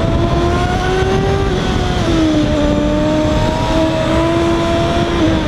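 Honda CB600F Hornet's inline-four engine running at steady high revs while riding, heard onboard over wind rush; the engine note dips slightly about two seconds in.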